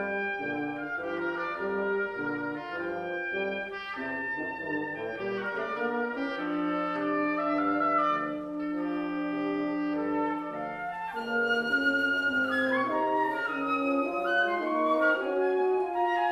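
Wind quintet of flute, oboe, clarinet, horn and bassoon playing a classical piece, with several lines moving together over a held low note. Brighter, higher parts enter about eleven seconds in.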